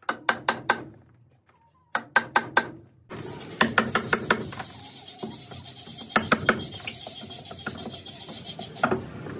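Quick bursts of about four sharp knocks, a tool striking a nailed-on wooden feeder box to work it loose from a barn stall's plank wall. From about three seconds in, a continuous rattling, scraping clatter follows as the box is pulled away.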